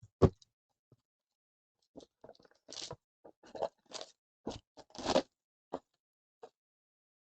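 Trading-card packaging being handled and opened: a sharp knock just after the start, then about four seconds of crinkling and scraping of plastic wrap and cardboard.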